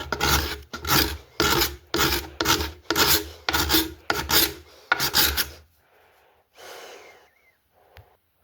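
A hand-held paint scraper scraping dried hot glue off an oak lampshade in quick repeated strokes, about two a second, stopping about five and a half seconds in; a few quieter scrapes and a sharp click follow.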